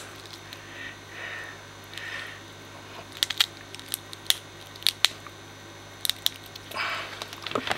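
Side cutters snipping and crunching through the skull bone of an African catfish: a scattered series of sharp clicks and cracks, several of them close together in the middle.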